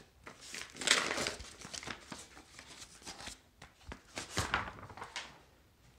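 Yellow padded paper mailer being torn and pulled apart by hand: irregular crinkling, rustling and short tearing sounds, loudest about a second in and again around four and a half seconds.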